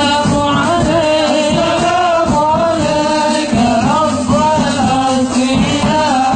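A voice singing a Middle Eastern-style devotional song with musical accompaniment, the melody drawn out and wavering on long notes.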